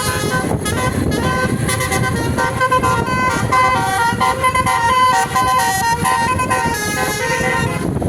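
Basuri multi-tone 'telolet' bus horn playing a tune of held notes that step up and down, over a steady low rumble.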